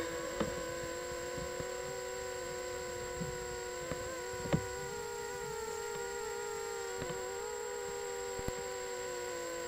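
Eachine Racer 250 quadcopter's motors and propellers whining steadily in flight, the pitch wavering slightly with throttle. A light click about four and a half seconds in.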